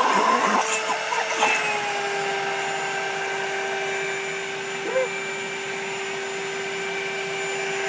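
Vacuum cleaner motor running steadily with a constant high whine. Knocks and short squeals in the first second and a half, and another brief squeal about five seconds in.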